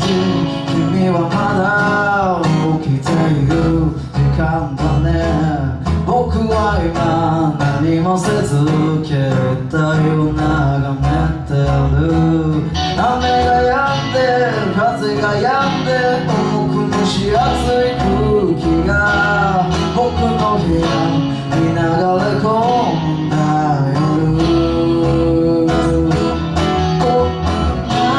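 A small band playing a slow song: strummed acoustic guitar with electric guitar and electric bass, and a male voice singing over them.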